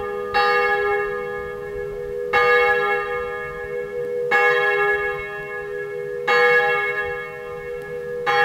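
Church bell ringing with evenly spaced strokes, five of them about two seconds apart. Each stroke rings on until the next one.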